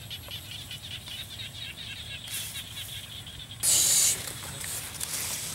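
A rapid, steady chirping in the background, then a loud, brief rustle of a woven plastic sack being picked up, a little under four seconds in.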